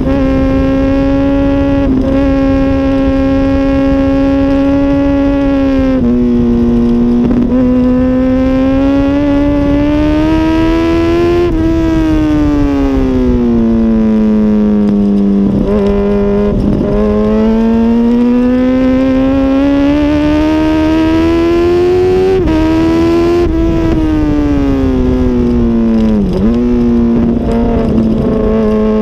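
2006 Honda CBR1000RR's inline-four engine at speed on track, heard from on board: its pitch climbs under throttle and sinks when backing off for corners. Twice the pitch drops suddenly, as at a gear change.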